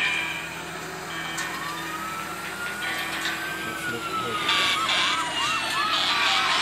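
Benchmark game audio from three smartphones' speakers playing the AnTuTu 3D test's fire-truck scene: a simulated siren wails in a slow rise and fall, then switches to rapid short whoops about four and a half seconds in, over a steady machine hum.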